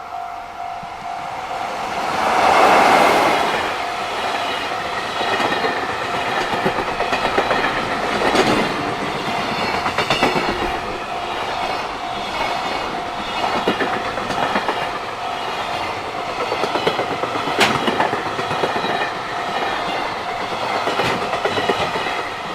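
A JR Freight freight train passing close by: the locomotive goes past loudly about three seconds in, then a long string of freight wagons follows with the wheels clacking steadily over the rail joints. A level-crossing warning bell rings throughout as a steady tone.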